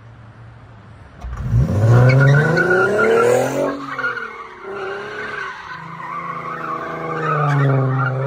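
2004 Infiniti G35 coupe's 3.5-litre V6 revving hard while the car slides with its rear tyres spinning and squealing on a wet road. The engine revs up sharply about a second in, then rises and falls several times under the squeal.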